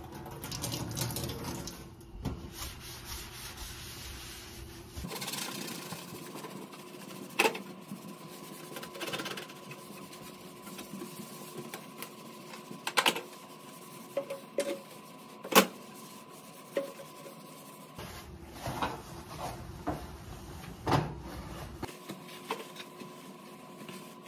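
A sponge scrubbing and a paper towel wiping a stovetop, with a few sharp knocks against the stove's surface, over a faint steady hum.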